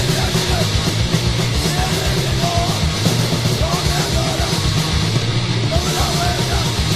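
Hardcore punk recording: fast drums, distorted guitar and bass played at full tilt, with shouted vocals coming in a few seconds in.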